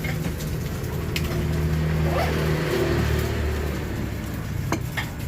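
Road traffic: a vehicle engine running with a steady low hum that swells for a second or two and then fades, with a few sharp clicks.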